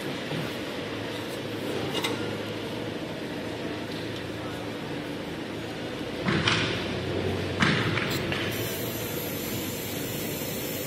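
Semi-automatic maxi-roll tissue cutting machine running with a steady hum, with two short clanks about six and a half and eight seconds in as the operator handles the metal end of the core shaft.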